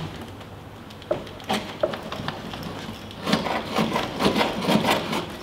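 Knife blade hacking and scraping at a flat-screen TV's hard plastic bezel: a few separate knocks, then a fast run of strikes and scraping over the last couple of seconds as the blade works its way through the plastic frame.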